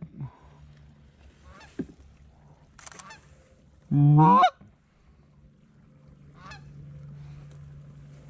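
Goose honking: one loud, clear honk about four seconds in, with fainter honks before and after it.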